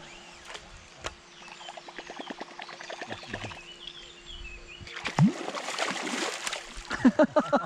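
Steady fast ticking as a topwater lure is retrieved across the surface with a baitcasting reel, with faint bird chirps. About five seconds in, a wels catfish strikes the lure in a loud, heavy splash that keeps churning, and an excited shout rises near the end.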